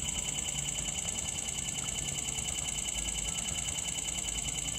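iPhone camera shutter sound in burst mode, a rapid, steady run of clicks while the shutter button is held down. The burst is being used as a load test of a newly replaced battery.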